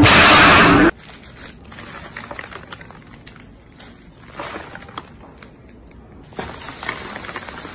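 A Nature Valley crunchy granola bar being handled in its foil wrapper: soft crinkling of the wrapper and small crackles as the dry, crumbly bar is broken apart, a little louder near the end. A brief, loud burst of noise fills the first second.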